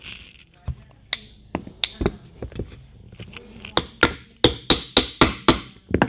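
Ball-peen hammer tapping a steel axle shaft through a mobility-scooter wheel hub and spacer, sharp metallic knocks with a short ring. A few scattered taps come first, then a quick run of about six harder strikes in the second half as the shaft is driven into alignment.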